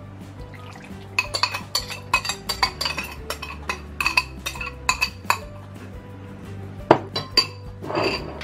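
Metal spoon clinking and scraping against a ceramic mug as dissolved sugar is scraped out into a bowl of masa: a quick run of sharp, ringing clinks for several seconds, with a few more near the end. Background music plays underneath.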